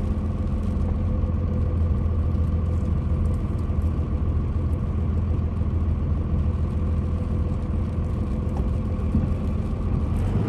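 The 5.9 Cummins straight-six diesel in a 2002 Dodge Ram 2500 runs steadily under way, heard from inside the cab as a low rumble with road noise and a faint steady whine. The brakes make no squeal or grind as the truck rounds the bends.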